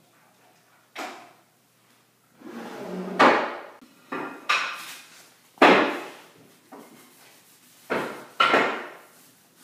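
Steel-bar clamps with red jaws clattering and knocking against glued-up hardwood strips as they are set and tightened, about six sharp wooden and metal knocks, one preceded by a short scrape.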